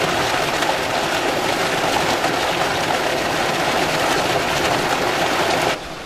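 Water gushing from a row of plastic inlet pipes and splashing into a concrete trout-pond channel, a steady rushing splash; it cuts off shortly before the end.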